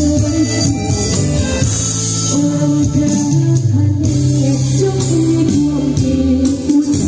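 A woman singing into a microphone over loud amplified backing music.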